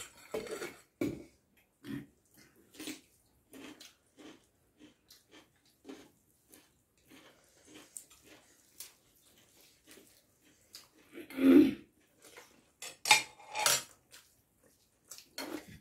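People eating rice and curry by hand from metal plates: chewing and lip-smacking, with fingers working the rice against the plates and occasional clinks. A louder mouth sound comes about eleven and a half seconds in.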